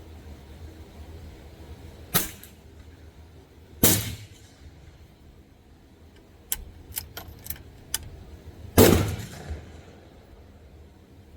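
Gunshots: three loud reports, each with an echoing tail, about two, four and nine seconds in. Between the second and third come several fainter, sharper cracks.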